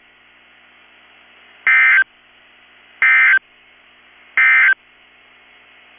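Three short bursts of SAME digital data tones from a NOAA Weather Radio alert broadcast, each about a third of a second long and a little over a second apart, with faint radio hiss between them. Coming right after the warning text, these are the end-of-message code that closes the Emergency Alert System warning.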